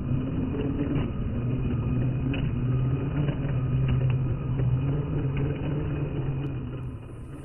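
MN86KS radio-controlled crawler driving slowly over loose stones: a steady low motor drone with a few faint clicks.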